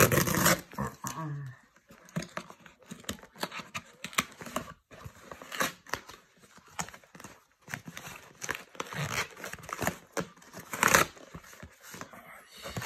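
A cardboard shipping box being torn open along its tear strip and handled: irregular tearing and rasping of cardboard, loudest right at the start and again about eleven seconds in.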